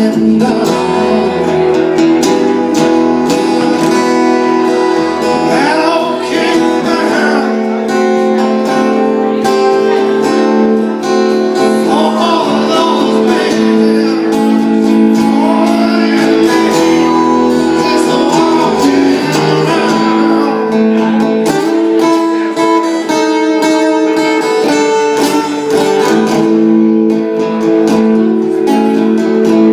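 Live solo acoustic guitar played in a folk-blues style, with a man singing over it in stretches.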